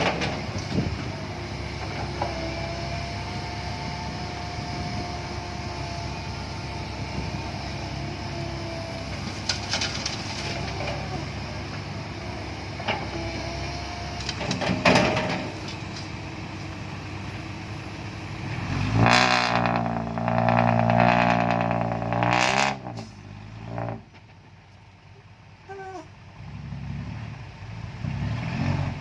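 Komatsu PC130-8 hydraulic excavator working as it loads laterite into a dump truck: a steady diesel engine rumble with a faint hydraulic whine and a few sharp clanks. About 19 seconds in, a diesel engine revs loudly for about three seconds, then the machinery runs much quieter.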